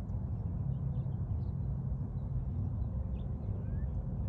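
Steady low rumble of outdoor background sound, with a few faint, brief high chirps scattered through it.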